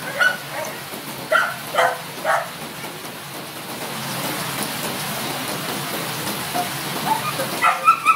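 Young dogs barking and yipping in short calls, four in the first two and a half seconds and a few more near the end, with a steady hiss of rain in between.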